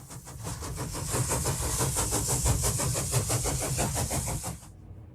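Steam locomotive chuffing in a steady rhythm of about five beats a second, with hiss over a low rumble, cutting off suddenly near the end.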